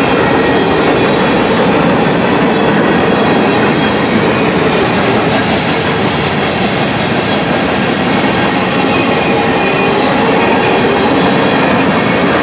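Freight train cars rolling past: a steady, loud rumble and rattle of steel wheels on the rails.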